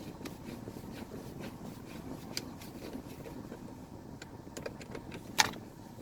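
Scattered light clicks and taps of hands and tools handling the plastic dashboard trim, with one sharper click near the end, over a steady low hum.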